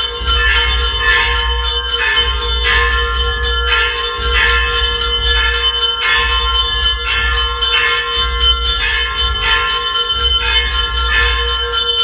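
Temple bells ringing rapidly and continuously for the aarti, with a low pulse repeating about every one and a half seconds underneath.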